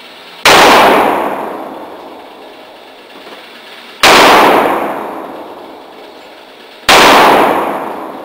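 Three shots from a Taurus Judge revolver firing .410 shotgun shells loaded with birdshot, spaced about three to four seconds apart. Each report rings on with a long echo off the walls of the indoor range.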